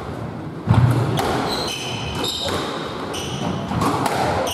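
Squash rally: the ball cracking off rackets and thudding off the court walls, the heaviest thud about three-quarters of a second in. Trainers squeak in short chirps on the wooden court floor between the shots.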